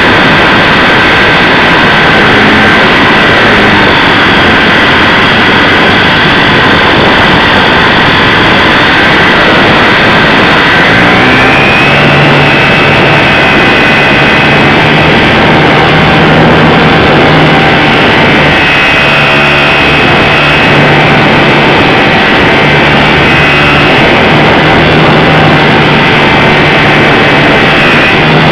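Onboard sound of a HobbyZone Super Cub RC plane in flight: its electric motor and propeller whine steadily under loud wind rush on the onboard camera's microphone. The motor note shifts about eleven seconds in as the throttle changes.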